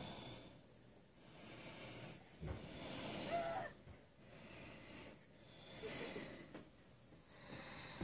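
A person breathing close to the microphone, in a few slow breaths that come and go every couple of seconds, with a faint short pitched sound about three seconds in.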